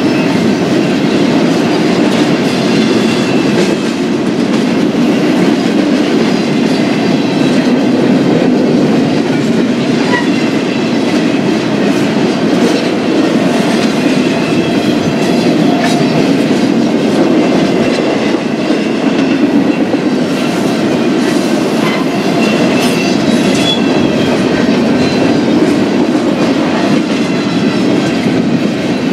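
BNSF double-stack intermodal freight train's cars rolling past steadily, a loud, unbroken rumble of wheels on rail.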